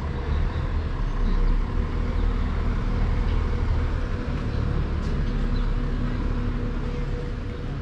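Street traffic: a motor vehicle's engine running close by as a steady low hum, swelling about a second in and easing slightly toward the end, over a general city-street noise.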